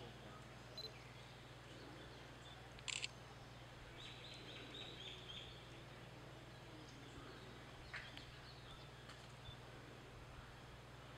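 Faint outdoor ambience with a low steady hum. There is a sharp double click about three seconds in, another click near eight seconds, and a short run of faint high chirps a little after four seconds.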